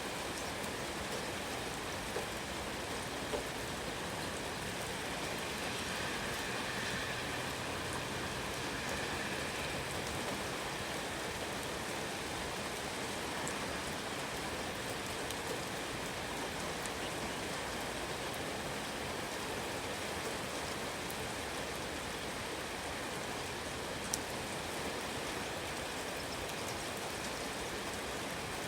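Steady rain falling, an even hiss of drops with a few sharper single ticks.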